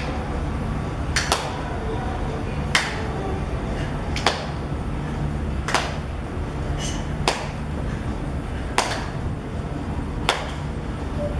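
Sharp hand claps, one about every second and a half in an even rhythm, each clap at the top of a crunch, over a steady low background hum.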